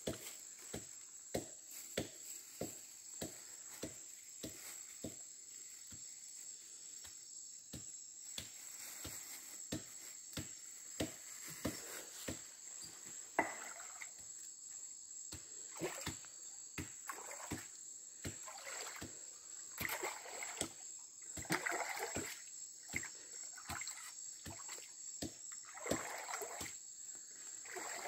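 Water splashing and sloshing in a shallow muddy pool as a stick is worked through the water and leaf litter, preceded by a steady run of sharp knocks about one and a half a second. A steady high insect drone runs underneath.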